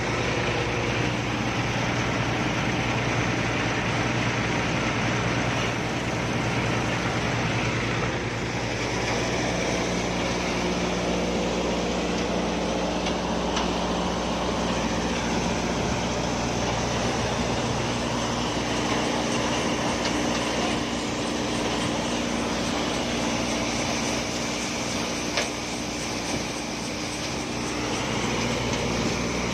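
Steady machinery noise: an engine or motor running with a low drone, its pitch settling lower and changing about ten seconds in.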